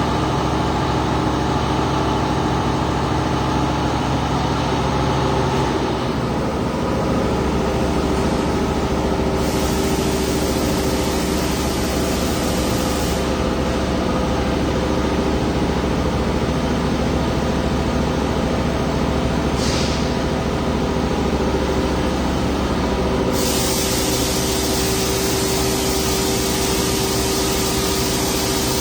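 Robotic arc welding: a welding cobot's torch hissing in stretches that switch on and off abruptly, over the steady hum of the welding equipment.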